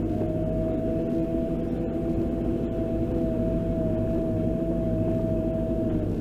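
JCB 535 Loadall telehandler running and turning, heard from inside its cab: a steady diesel engine drone with a steady high whine over it that stops near the end.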